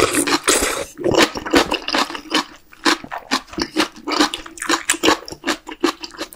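A person slurping spicy beef-brisket soup broth from a wooden spoon, a long noisy slurp through the first second. Then wet open-mouth chewing with quick smacking clicks, several a second.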